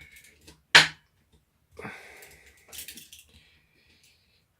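Hand-tool noises from undoing the Torx screws on a Ryobi 4V screwdriver's plastic casing: a sharp click about a second in, then a brief squeaky scrape as the screw is worked loose.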